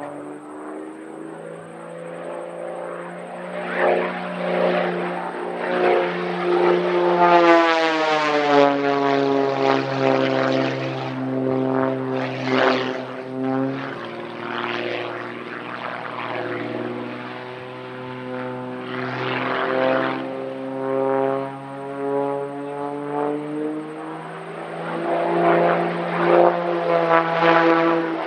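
Pitts S-1-11B aerobatic biplane's six-cylinder Lycoming piston engine and propeller during a flying display. The engine note rises and falls again and again as the aircraft climbs, dives and rolls. It flares briefly harsh at several points.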